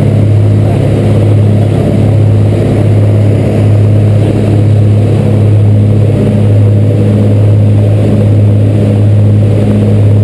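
Dive boat's engine running steadily at speed, a loud low drone that holds one pitch, over the rush of water and spray along the hull.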